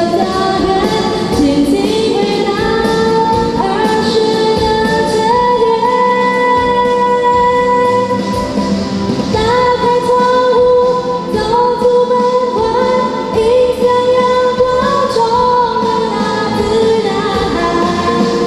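A song with a female voice singing a melody of held notes over instrumental accompaniment.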